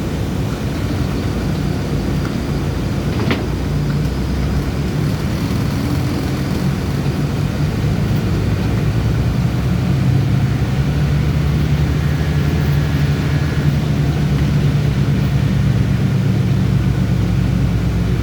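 City bus driving: a steady low engine drone with road noise, growing a little louder about halfway through, and a single sharp click a few seconds in.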